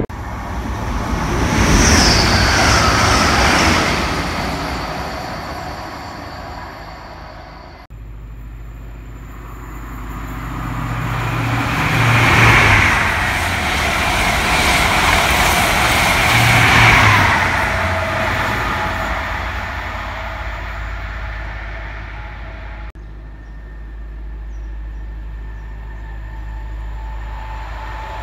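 Electric high-speed trains of Mk4 coaches running through at speed: the wheels-on-rail and air rush builds to a loud peak and fades, twice, with a high tone sliding down about two seconds in. Near the end, a quieter steady rumble comes from a Class 91-hauled train approaching.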